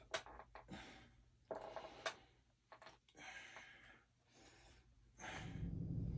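Faint breathing of a man working out with a dumbbell: several soft breaths with a few small clicks. About five seconds in, a steady low hum starts.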